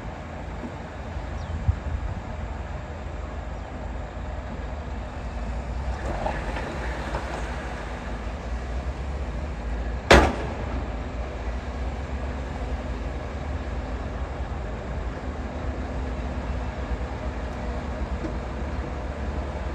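Heavy diesel earthmoving machinery rumbling steadily, with one sharp loud clank about halfway through.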